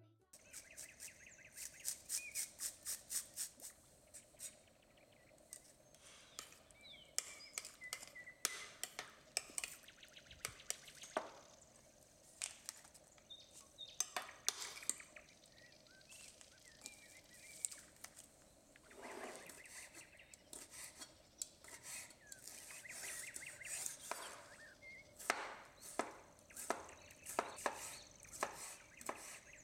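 Quiet kitchen prep sounds: a spoon clinking and scraping in a ceramic bowl of mayonnaise, then a knife dicing cucumber on a wooden cutting board in steady chops, about two or three a second near the end. Faint bird chirps now and then.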